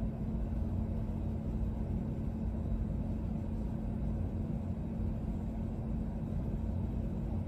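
Steady low rumble of room background noise with a constant low-pitched hum running under it.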